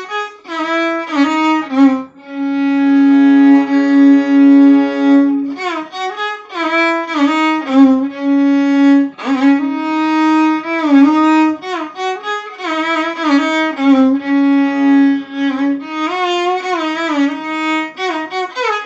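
Intro music: a slow solo melody on a bowed string instrument, full of sliding pitch bends. A long held note comes about two seconds in.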